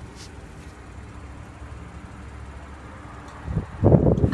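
Low steady hum, then about three and a half seconds in a burst of bumps and rubbing from a handheld camera being moved around the car's interior.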